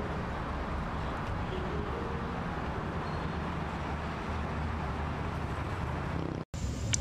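Steady rumble of distant road traffic, with a few faint short tones over it; the sound drops out for an instant near the end.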